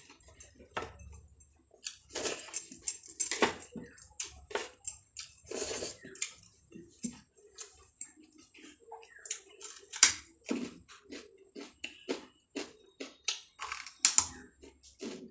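A person eating rice and side dishes, chewing and smacking with irregular wet mouth clicks and a few louder bites.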